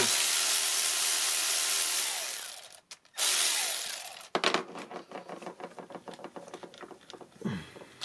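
Cordless electric ratchet running twice as it backs out an ignition coil hold-down bolt: first a long run of nearly three seconds, then a short run of about a second after a brief pause. Light clicks and rattles of tool and parts being handled follow.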